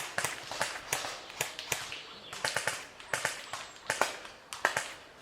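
Airsoft guns firing in scattered, irregular shots, sharp cracks and clicks coming several times a second as players lay down suppressing fire.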